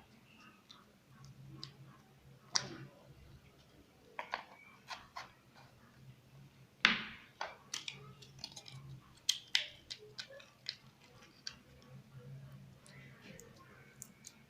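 Slime being squished and stretched by hand, giving irregular wet clicks and pops of trapped air, the sharpest about seven seconds in.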